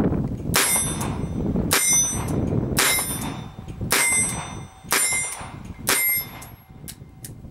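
Six shots from a Colt Officer's Model revolver in .22 LR, about one a second. Each is a sharp crack followed by a short metallic ring. Two faint clicks come near the end.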